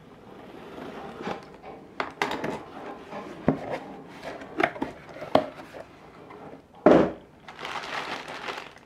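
A cardboard box being opened by hand: scraping and tearing of tape and card, with irregular sharp clicks and knocks from the flaps. Near the end comes a loud crinkle, then plastic packaging rustling.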